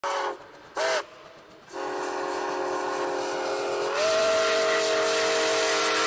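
Steam locomotive's chime whistle, sounding several notes together: a short blast, a brief second one, then a long held blast that steps slightly higher in pitch partway through.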